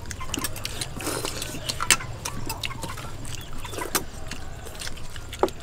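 Metal spoons clicking and scraping against a large metal serving tray, with eating sounds, in short irregular clinks over a steady low hum.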